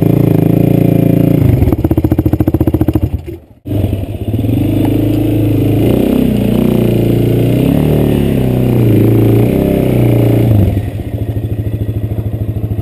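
Honda TRX450R quad's single-cylinder four-stroke engine running while the quad is backed down metal loading ramps off a pickup. It idles with a lumpy, pulsing beat, drops out for a moment about three and a half seconds in, then is revved up and down in short blips for several seconds before settling back to a pulsing idle.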